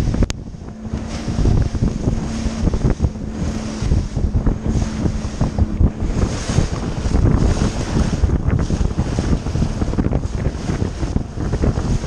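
Heavy wind buffeting the microphone of a camera on a bass boat running at speed over choppy water, with spray hissing and the hull hitting the waves in irregular low thumps.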